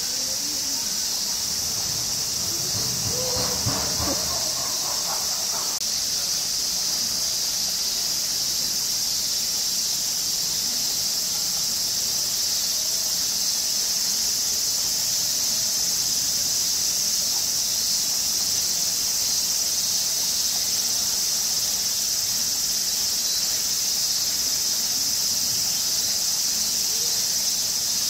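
A chorus of cicadas making a steady, high-pitched buzz that does not let up. A brief voice comes in about three seconds in.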